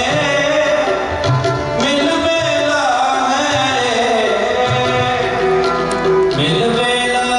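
Indian-style music: tabla drums under a singing voice and melody instruments, at a steady loud level.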